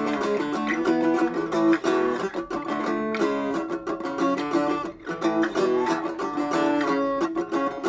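RJ Acousticaster acoustic-electric guitar being played: a continuous run of plucked notes and chords, with new notes sounding several times a second.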